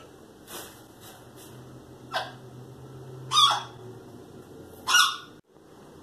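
Parrot imitating a human cough, giving a few short, harsh cough sounds, three of them clear, about a second and a half apart, the middle one loudest.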